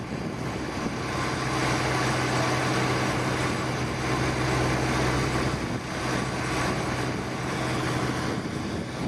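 An engine running steadily: a low hum under a rushing noise. The hum fades about seven seconds in.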